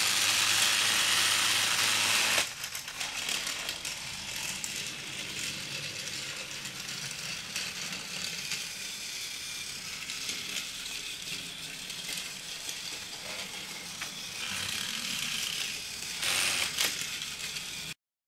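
Battery-powered Trackmaster Thomas toy engine running on plastic track, its small motor and gears whirring and rattling with clicking. The running is loud for the first couple of seconds, then drops to a quieter steady run, and cuts off abruptly near the end.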